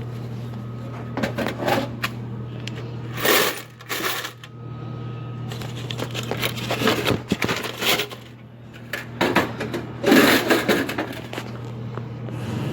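Coins clinking and metal parts of a vending machine clattering as it is opened and its cash collected, with louder bursts of rattling about three, seven and ten seconds in, over a steady low hum.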